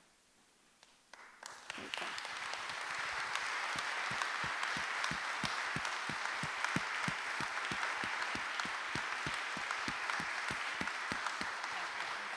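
Congregation applauding: the clapping starts about a second in, swells to full within the next second and holds steady, with a beat of nearer, sharper claps about three to four a second over it.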